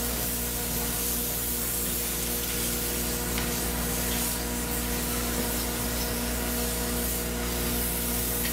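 Steady hiss of a hand-held spray gun on a long hose, worked over a wooden floor deck, with a steady machine hum beneath.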